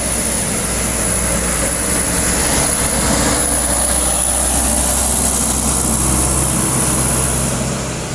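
Truck engine running steadily under load as the truck climbs, fading away near the end.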